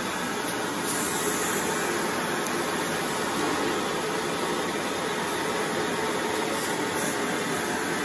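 Airway Sanitizor Mark V canister vacuum cleaner running steadily, its power nozzle on carpet.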